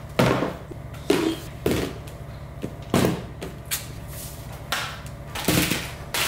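A series of about seven separate knocks and thuds: kitchen cupboard doors opening and closing and ingredient containers being set down on the counter while ingredients are gathered.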